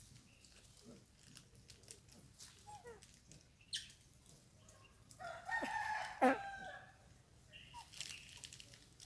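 A rooster crows once, a long pitched call a little past the middle, with faint clicks and rustles around it.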